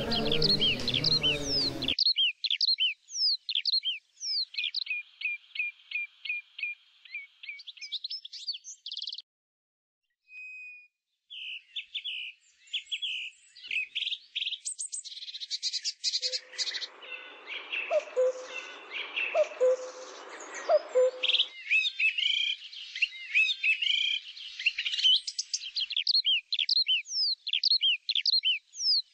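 Songbirds singing: fast runs of short, high chirps and trills that repeat again and again, with a brief lull about ten seconds in. A lower, softer call with a few notes joins in the middle.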